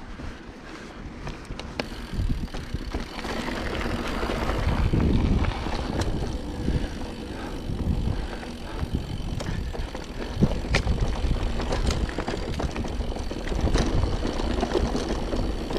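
Mountain bike riding along a dirt trail: rumble of the tyres over the ground with scattered clicks and rattles from the bike, and wind on the microphone. It gets louder about two seconds in.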